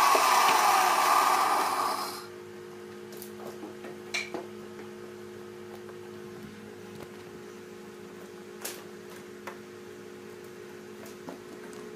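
Band saw cutting through a thick wood slab, loud for about two seconds until the cut ends. Then only a steady motor hum remains, with a few light knocks.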